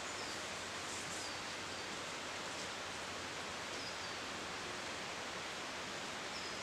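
Steady outdoor background hiss in the woods, with a few faint, short, high chirps.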